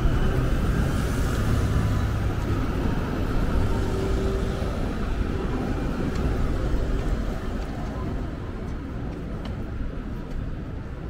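City street traffic: motor vehicles running past with low engine noise, easing off a little toward the end, with indistinct voices of passers-by.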